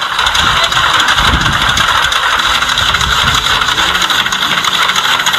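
Hand-cranked winnowing mill running steadily as grain is poured into its hopper, with some low knocks between about one and three seconds in. It is heard through a video display's speaker.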